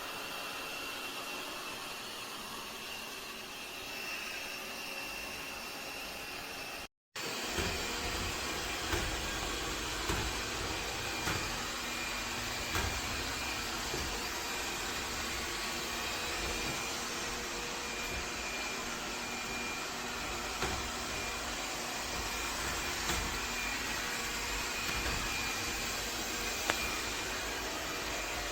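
Laresar Clean L6 Nex robot vacuum running, a steady hum with a faint high whine. About seven seconds in the sound drops out briefly and comes back louder, with more low rumble and faint occasional knocks.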